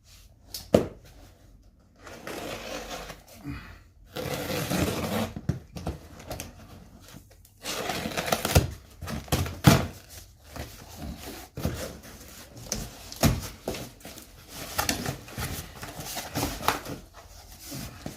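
A cardboard box being opened and its packing rustled and pulled out, with scraping and several sharp knocks as heavy items inside are handled.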